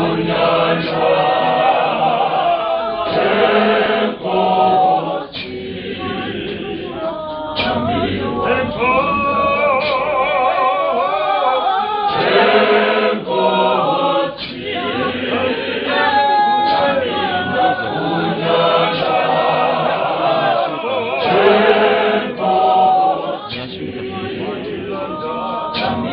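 Church choir singing a hymn, many voices in harmony with wavering, sustained notes.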